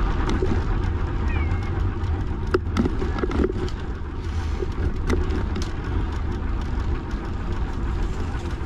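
Wind buffeting the microphone over the rumble of a bicycle rolling along a path, with scattered small clicks and rattles.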